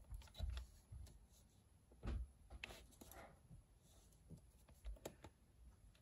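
Faint, scattered clicks and rustles of paper being cut and handled, with a few soft snips spread out and the clearest about two seconds in.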